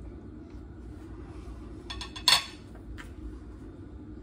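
Metal fork clinking down on a plate a little over two seconds in, with fainter clicks just before and about a second after, over a steady low room hum.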